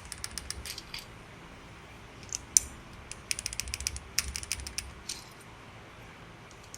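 PBT double-shot plastic keycaps clicking and clattering as they are handled and pressed onto mechanical keyboard switches: quick clusters of small sharp clicks, dying away about two-thirds of the way through.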